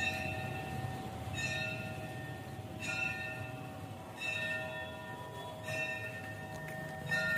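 Bell-like chime struck about every second and a half, each stroke ringing on in steady tones that fade slowly before the next.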